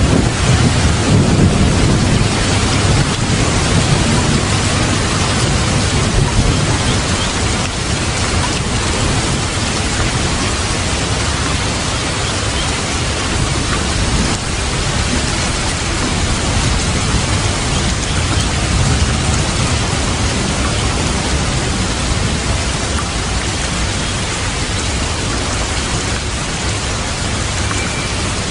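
Steady heavy rain with a low thunder rumble that is strongest in the first several seconds and then eases.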